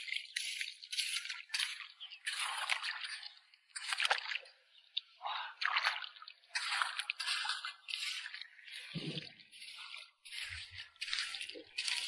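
Small hand hoe digging into wet, shell-strewn sand on a tidal flat: a run of short, irregular wet scrapes and squelches, several a second, with a few duller thuds near the end.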